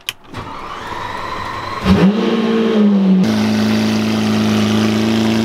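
2012 Lamborghini Aventador LP700-4's 6.5-litre V12 being started: a click, the starter whirring with a rising pitch for about a second and a half, then the engine catching with a loud flare of revs that settles into a steady idle. The idle is heard close to the exhaust.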